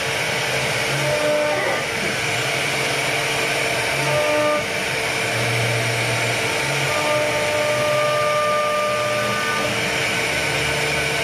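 CNC router carving a wooden door panel: a steady whirring spindle, with motor tones that switch pitch in steps every second or two as the machine moves.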